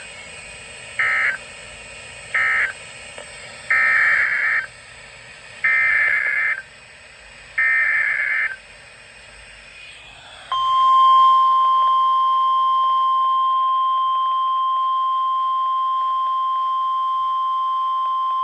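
Emergency Alert System data bursts from a NOAA Weather Radio severe thunderstorm warning: six harsh digital screeches. Three short ones close the previous message, then three longer ones form the SAME header of the next. About two seconds after the last burst, the steady single-pitch 1050 Hz weather-radio warning alarm tone starts and holds.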